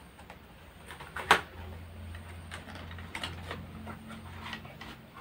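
A small cardboard product box being opened and handled: scattered taps and scrapes of cardboard, with one sharp click about a second in. A low steady hum runs underneath from about a second and a half in.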